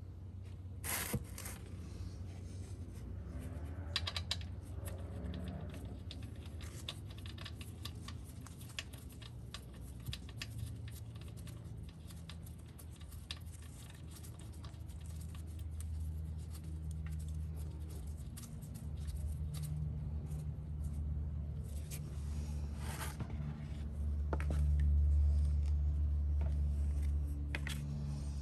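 Hand work under a scooter engine during an oil change: scattered small clicks and scrapes as the drain plug, filter screen cap and oil drain pan are handled, with a few sharper clicks. Under it runs a low hum that grows louder and is loudest near the end.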